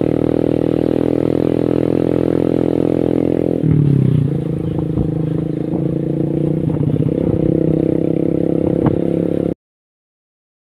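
Motorcycle engine running steadily under way, dropping in pitch about four seconds in as the bike slows, then running on at lower revs with a few knocks and rattles. The sound cuts off abruptly near the end.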